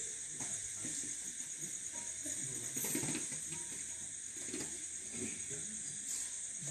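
Faint background noise of a seated crowd: scattered low voices and movement under a steady high hiss.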